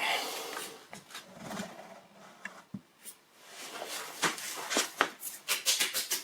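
Irregular light clicks and knocks from the Evolution Rage 4 chop saw's metal parts being handled, coming faster in the last couple of seconds.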